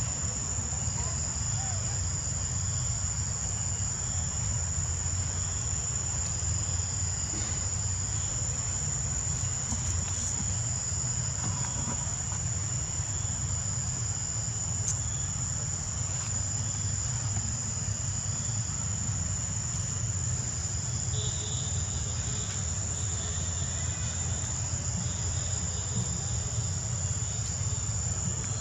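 Steady, high-pitched drone of insects calling without a break, over a low rumble.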